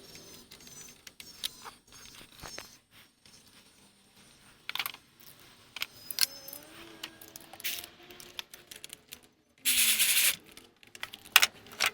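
Scattered metallic clinks and clicks of hand tools and bolts, with a dense burst of rapid clicking near the end, as a starter motor's mounting bolts are tightened with a ratcheting wrench.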